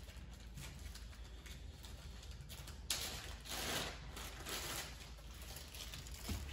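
Plastic bag rustling and crinkling in a few short bursts as a small bagged part is handled, over a faint steady low hum.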